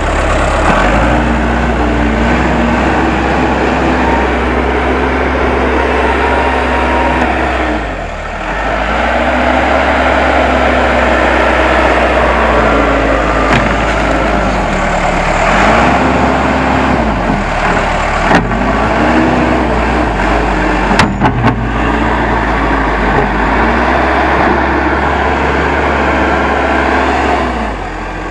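Case 580M backhoe loader's diesel engine running under load as it works the ground. Its pitch repeatedly sags and climbs back every few seconds as the hydraulics take and release load.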